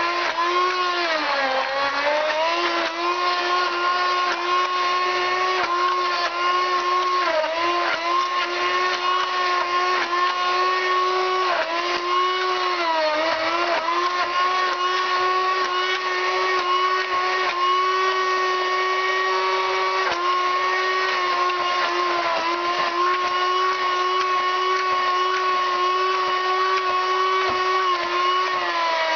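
Electric stick blender running steadily while puréeing a creamy dip in a plastic bowl: a high motor whine. Its pitch sags briefly every few seconds as the blade bogs down in the mixture, then recovers.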